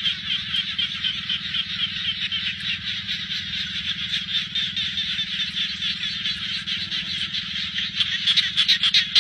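A chorus of many frogs calling together, a dense fluttering mass of calls. About eight seconds in, a louder call starts up and repeats in quick, even pulses.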